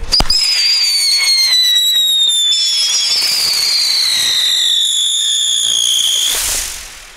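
Two Funke Tornado Wirbel whistling ground spinners firing together: a sharp pop as they go off, then two shrill whistles that slowly fall in pitch as they spin, dying away near the end.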